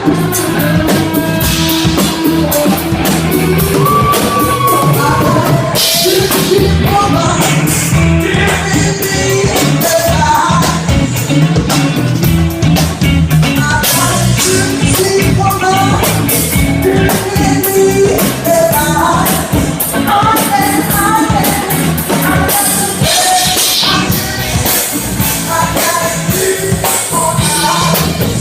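Live blues band playing a shuffle with a singer, drum kit, electric bass and guitar.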